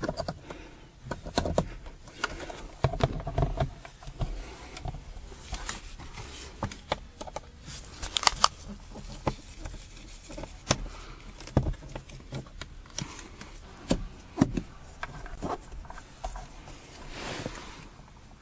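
Irregular clicks, taps and knocks from hand work on the truck's parts and tools, with a low steady hum underneath.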